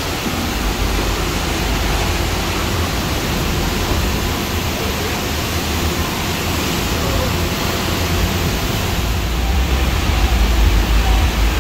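Steady loud hiss of car-wash equipment running, with a deep rumble building near the end as the 1989 Chevy Caprice is driven forward.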